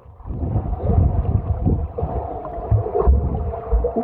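Muffled sloshing and gurgling of swimming-pool water, a low rumble with irregular low thumps.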